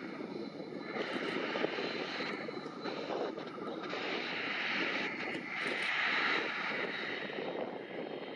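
Twin Pratt & Whitney Canada PW545 turbofans of a Cessna Citation XLS business jet running at low power as it rolls out along the runway after landing: a steady jet hiss that swells about five seconds in.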